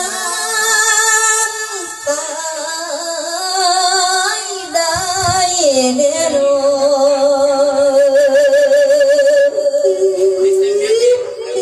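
A voice singing a Thai Isan verse sermon in a melodic chant, with long wavering held notes; a long vibrato note is held from about halfway through until near the end.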